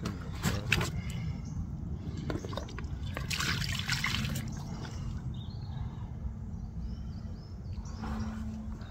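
Water poured from a camouflage bucket, splashing for about a second and a half around three to four seconds in. There are a few handling knocks in the first second.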